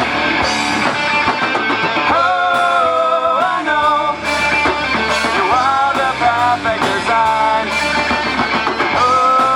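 Live rock band playing: drums and guitars, with a melody of held notes that slide from one pitch to the next, starting about two seconds in.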